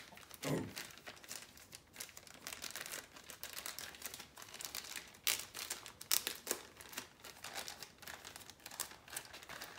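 Clear plastic packaging bags crinkling as they are handled, with irregular sharp crackles, the loudest a little past the middle.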